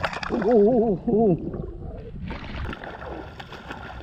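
A man's voice in a brief wavering exclamation, followed about two seconds in by a steady rushing noise.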